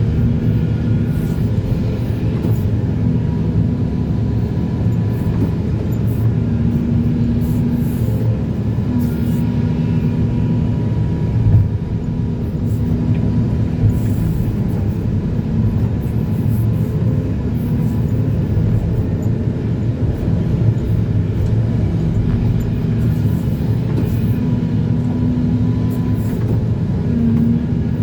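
Hydraulic excavator's diesel engine running steadily, with one brief knock partway through.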